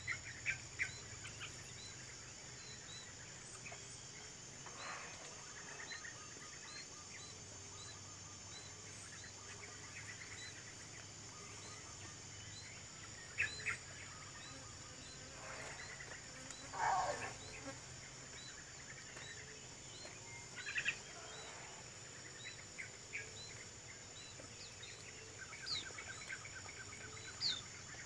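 Tropical forest ambience: a steady high insect drone with a short chirp repeating about twice a second, and scattered bird calls, a few of them louder.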